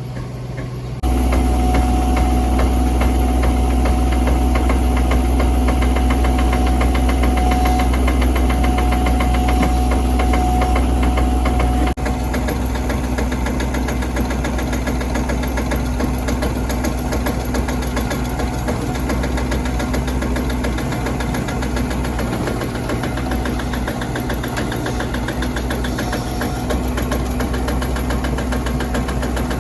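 Digger's engine running steadily at a constant speed, with a low hum and a held whine.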